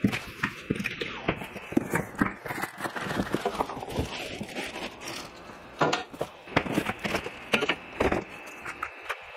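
Cardboard packaging and parts being handled: irregular knocks, taps and rustling.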